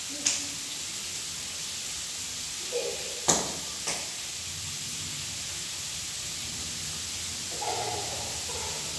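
Steady hiss of rain. A sharp knock comes just after the start and two more a little over three seconds in; the first of those two is the loudest.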